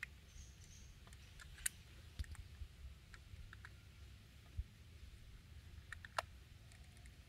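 A handful of light clicks and taps from small carburetor parts and hand tools being handled during assembly, over a faint steady low hum.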